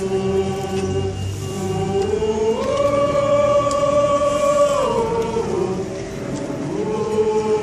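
Choir singing a slow melody in long held notes. The line steps up about two and a half seconds in, holds, sinks back around five seconds, and rises again near the end.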